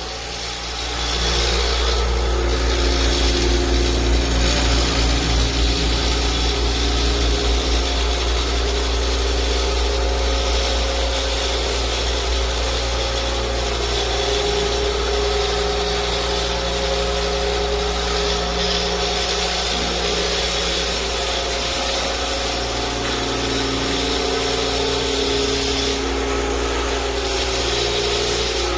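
Vibrating floor-cleaning machine running steadily as it scrubs a floor: a low motor hum with a rough rubbing noise, coming up to full level about a second in.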